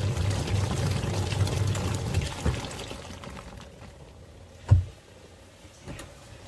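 Twin-tub washing machine churning water, its motor humming, then winding down about three seconds in. In the quiet that follows there is one sharp knock, then a fainter one.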